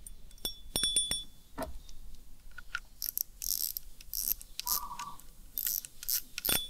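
Spinning fishing reel being put back together: small metal parts clink as the spool goes on. From about three seconds in, the spool is turned by hand in a few short spells, giving a fast ratcheting click from a new spool clicker made from a strip of steel cable tie.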